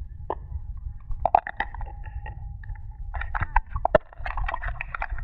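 Muffled knocks, crackles and rubbing on the camera's own microphone as the camera is jostled or handled, over a low rumble.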